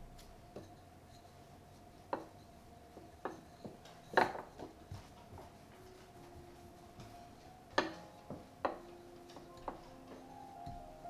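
Wooden rolling pin on a stone countertop as pastry dough is rolled out: scattered soft knocks and taps, the loudest about four seconds in, over a faint steady hum.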